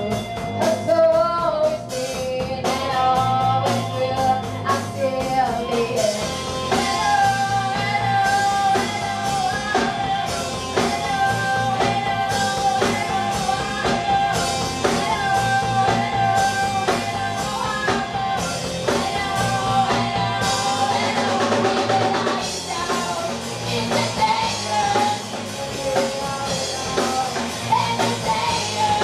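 Live rock band playing: a young female vocalist sings over electric guitars, bass guitar and a drum kit keeping a steady beat.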